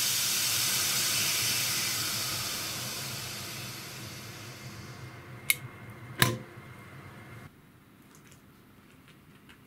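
Steam hissing out of a pressure cooker's vent, fading over several seconds as the pressure drops, followed by two sharp clicks.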